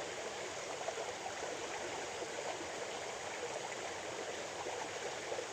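Small stream running over a shallow fall or riffle: a steady rushing and babbling of flowing water.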